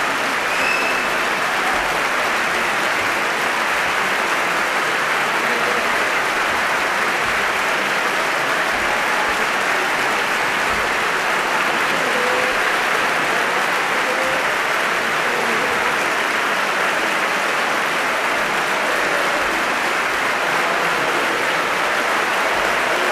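Long, steady applause from a packed parliamentary chamber: hundreds of members on their feet clapping in a standing ovation.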